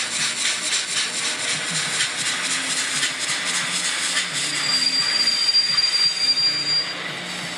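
Piko N-scale BR 82 model steam locomotive's DCC sound decoder playing steam-engine chuffing through its small onboard speaker, with a thin steady high tone from about four and a half to seven seconds in; the sound drops off near the end.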